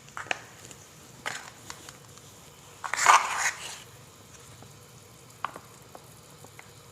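A spoon knocking and scraping against a pan and a sauce jar as chili garlic sauce is spooned into frying chicken. There are several short clinks, with a louder half-second scrape about three seconds in, over faint frying.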